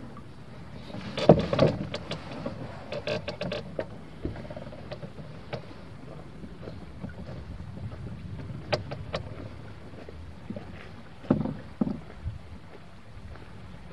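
Wenonah canoe on a creek: a steady low wash of water with scattered knocks against the canoe, in a cluster about a second in and again a couple of times near eleven seconds.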